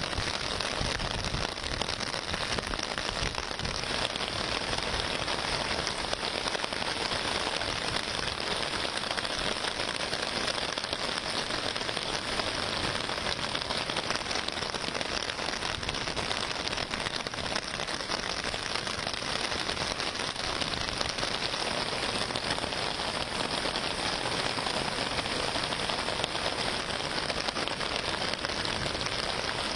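Heavy rain falling steadily on muddy floodwater: a dense, even hiss with no break.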